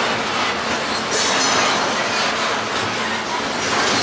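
Double-stack intermodal freight train's well cars rolling past: a loud, steady rumble of steel wheels on rail, with brief higher surges about a second in and near the end.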